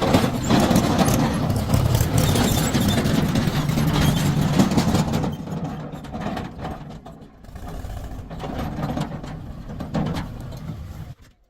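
Mahindra 275 DI tractor's diesel engine running under load, with a loud rattling clatter for the first five seconds or so, then quieter and uneven. It cuts off suddenly just before the end.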